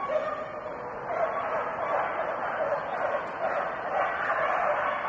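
A dog barking repeatedly, about two barks a second, over steady background noise.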